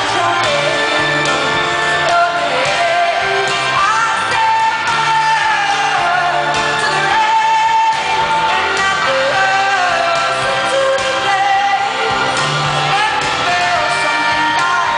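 A woman singing a pop ballad live into a microphone over a full band with electric guitar, holding long notes, amplified through a large hall.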